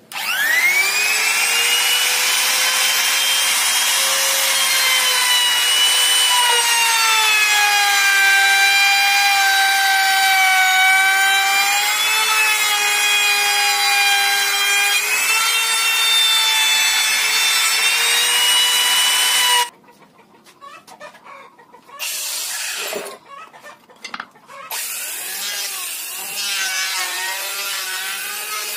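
Electric wood trim router spinning up to a high steady whine and cutting into wood, its pitch sagging slightly under load, then stopping abruptly about two-thirds of the way through. After a few seconds of scattered quieter sounds, an electric hand planer runs more quietly to the end.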